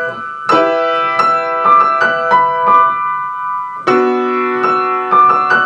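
Upright piano played slowly by a beginner: an E minor chord struck about half a second in and again near four seconds, each followed by a few single notes ringing over it.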